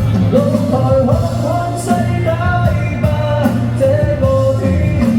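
A Chinese-language pop song playing, with a band backing, a steady bass and a gliding melody line between the sung phrases.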